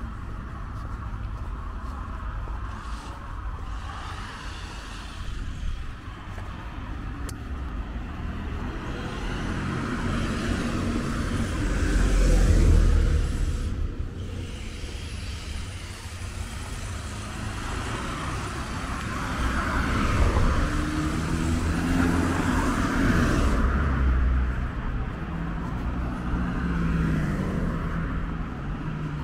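Road traffic: cars passing close by one after another, the loudest pass about twelve seconds in and another longer one around twenty seconds in.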